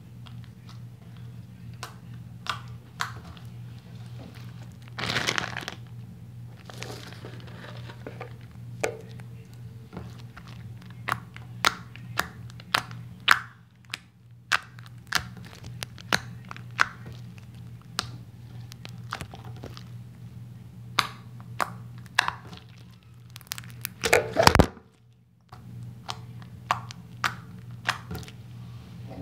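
Clear slime squeezed and kneaded by hand, giving off many sharp, irregular clicks and pops. There is a longer, louder crackling burst about five seconds in and again near the end.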